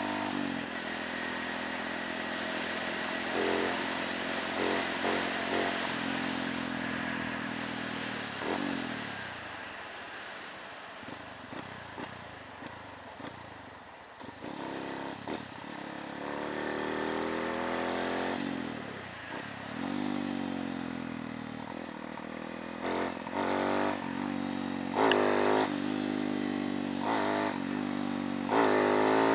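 Honda MSX125 single-cylinder four-stroke motorcycle engine, fitted with a 31 mm throttle body and running without an air filter, pulling through the gears on the road. Its pitch rises and falls with each acceleration and gear change, drops back while the bike slows in the middle, then climbs again, with a few short loud bursts near the end.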